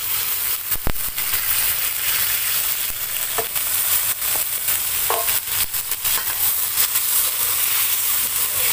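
Spice paste of garlic, shallots, chilli and belacan sizzling in hot oil in a steel wok as hot water is poured in, a steady hissing sizzle. A metal spatula stirs and clicks against the wok, sharpest about a second in.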